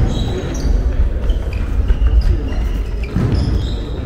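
Basketballs bouncing on a hardwood gym floor with sneakers squeaking, amid the echoing hubbub of a large gym.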